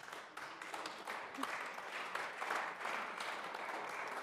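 Applause from the members of a parliament chamber, a dense patter of many hands clapping that builds about half a second in and starts to thin out near the end.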